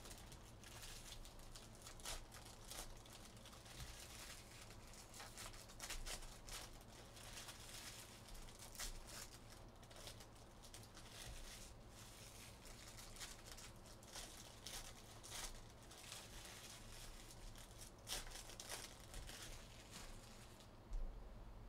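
Foil trading-card pack wrappers being torn open and crinkled, a faint run of scattered crackles, with one sharp tap near the end.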